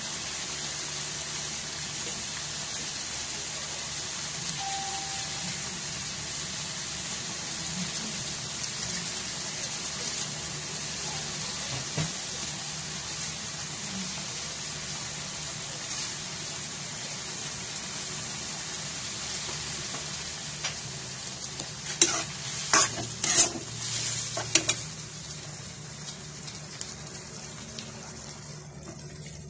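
Chicken pieces in sauce sizzling in a nonstick wok, a steady hiss. About three-quarters of the way through, a metal spoon knocks and scrapes against the pan a few times in quick succession, and after that the sizzle is quieter.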